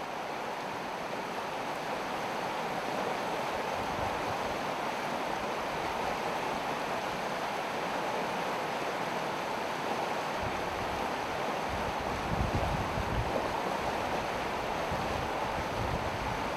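Steady rush of river water, with wind buffeting the microphone in low rumbling gusts from about ten seconds in.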